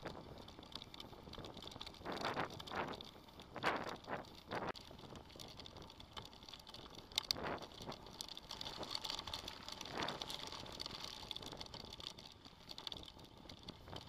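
Faint riding noise from a mountain bike rolling along a road and dirt track, with several short louder jolts and rattles as it goes over bumps.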